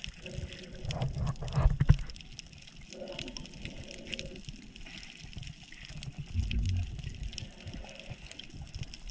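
Water sloshing and splashing, with a few sharp knocks between one and two seconds in.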